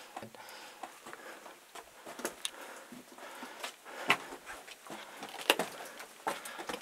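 Footsteps crunching and scraping on loose broken lava rock on a lava-tube floor: irregular crunches, the strongest a little past four and five seconds in.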